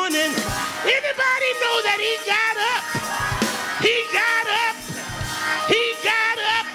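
A preacher whooping: sung, chanted preaching into a microphone in short rising-and-falling phrases, over steady held notes of musical backing.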